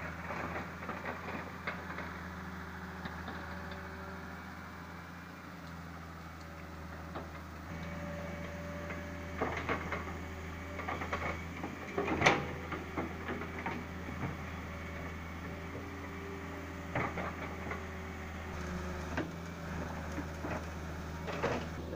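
Hitachi hydraulic excavator's diesel engine running steadily, with scattered knocks and cracks as the bucket digs into brush and soil, the loudest about twelve seconds in.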